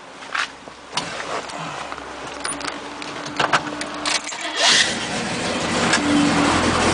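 A 1970 Chevelle SS's 396 cubic-inch, 375 hp L78 big-block V8 with solid lifters is started and runs. It gets louder over the last couple of seconds.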